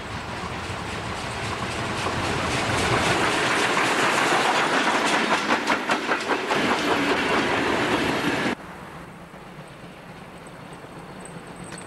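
Steam train with double-deck coaches passing close by, growing louder as it nears, then wheels clattering rapidly over the rail joints as the coaches go past. About two-thirds of the way through it cuts off suddenly to a much quieter steady sound.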